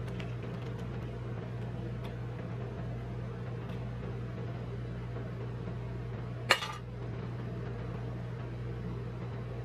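Steady low hum of a rolled-ice-cream cold plate machine running, with faint small clicks of scissors and sachet wrappers being handled and one sharp click a little past halfway.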